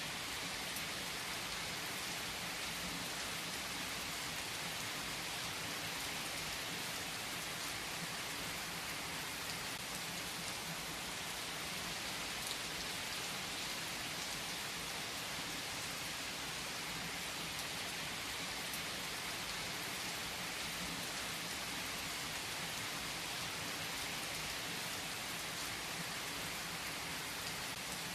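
Steady rain falling: an even, unbroken hiss with a few single drops ticking now and then.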